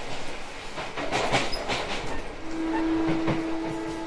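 Odakyu 1000 series electric train running, heard from aboard, with its wheels clicking over rail joints. From about halfway a steady tone with higher overtones joins in.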